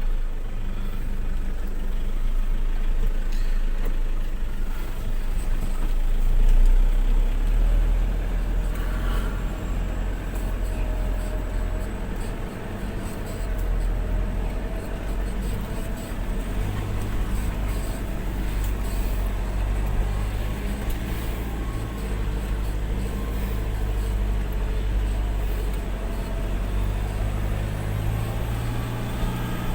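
Vehicle engine running steadily under load while driving a rough, muddy dirt road, its note shifting slightly about halfway through and again near the end.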